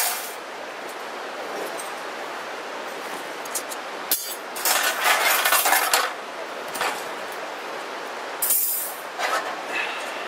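Stainless steel grill grates and sheet-steel fire-pit panels of a portable grill clinking and rattling as they are handled and set down. The clatter comes in bunches about four seconds in and again near the end.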